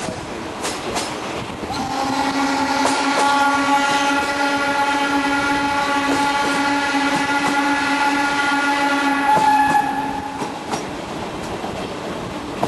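Steam locomotive whistle, the restored BDZ 46.03, blown in one long blast of about eight seconds. It sounds over the running noise of the train.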